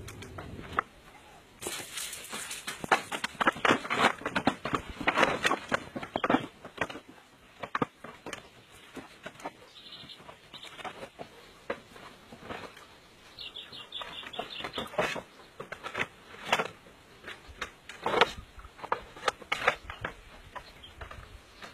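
Bamboo poles knocking and clattering against each other and the raft's bamboo deck as they are handled and fitted, in irregular bursts of short knocks.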